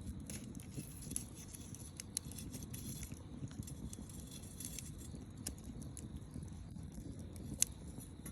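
Wood fire burning: scattered sharp crackles and pops over a low steady rumble, with one louder pop near the end.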